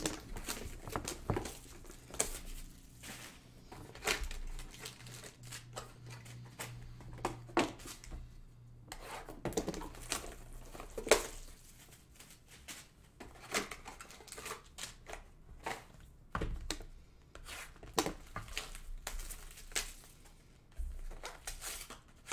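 Plastic shrink wrap being torn and crinkled off sealed trading-card boxes, mixed with cardboard boxes being handled and set down. Irregular rustles, crackles and light taps come every second or so.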